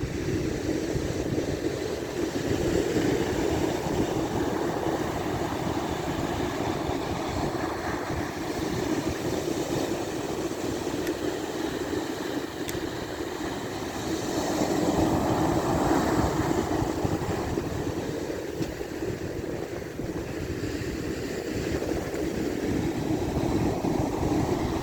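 Wind buffeting the microphone, a rough low rumble over a steady rushing noise that swells about halfway through.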